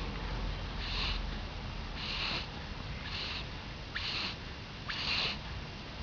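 A sleeping cat snoring: short, hissy breaths about once a second.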